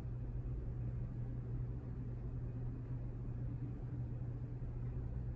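Steady low hum with a faint hiss, like a fan or air handler running in a small room; no distinct movement sounds stand out.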